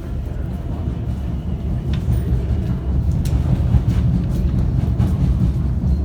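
Subway train rumbling through the station, a low, loud, steady rumble with a few brief clicks over it.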